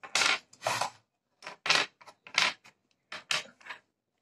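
A run of short scraping and rustling sounds, about seven in a row, from flat-pack furniture parts and small plastic packets of screws being handled and unwrapped.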